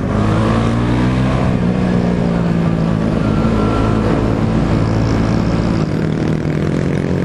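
A vehicle engine running close by, its pitch sliding down a little over the first few seconds and then holding steady, over the noise of street traffic.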